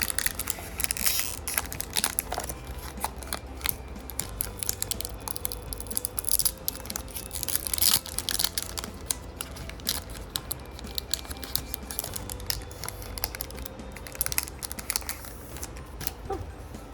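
A plastic trading-card booster pack wrapper being torn open and crinkled, followed by the cards being handled and flicked through, giving many small crackles and clicks.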